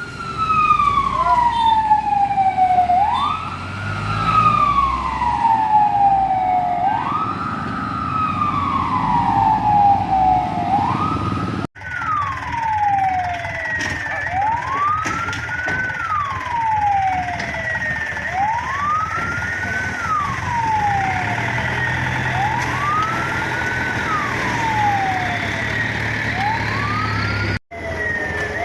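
Fire truck siren wailing: each cycle rises quickly and falls more slowly, repeating every three to four seconds. The sound cuts abruptly to another siren recording about twelve seconds in and again near the end.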